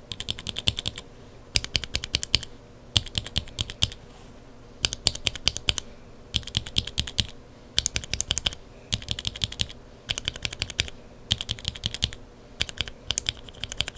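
Lubed mechanical keyboard switches with Kailh Burgundy linear stems being pressed in quick bursts of clacks, about ten bursts with short pauses between them. This is a sound test of the switch housings, including the TTC Black.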